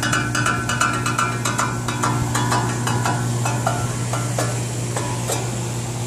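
Air-conditioner condenser unit humming steadily while its fan blade ticks against the fan baffle: a fast run of ticks that come further apart toward the end, the sign of a baffle sitting out of position and catching the blade.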